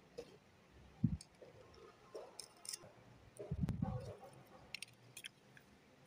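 Handling noise from white plastic lamp holders being reassembled by gloved hands. There is a soft knock about a second in and a longer knock with a sharp click around the middle, with scattered light clicks and scrapes of plastic between them.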